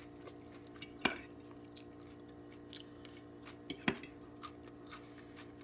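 Cutlery clinking against a plate: one sharp clink about a second in and two close together near the four-second mark, with a few lighter ticks, over a steady low hum.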